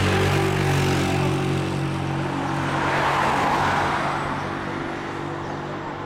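A motor vehicle's engine running steadily close by, with a car passing on the road that swells and fades about three to four seconds in.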